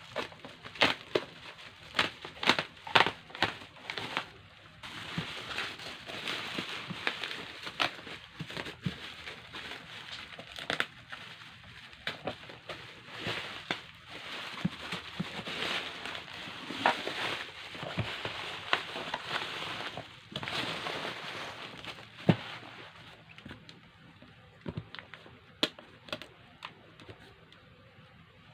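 Subwoofer packaging being handled and opened: crinkling and rustling, with scattered knocks and clicks. A cluster of sharp clicks comes in the first few seconds, and the sound thins out near the end.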